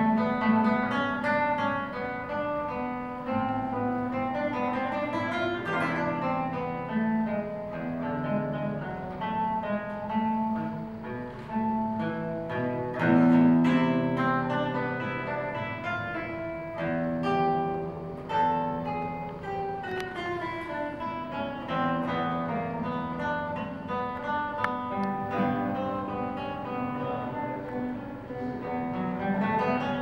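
Solo classical guitar played fingerstyle: a continuous piece with held bass notes under a busier melody, rising to its loudest passage about thirteen seconds in.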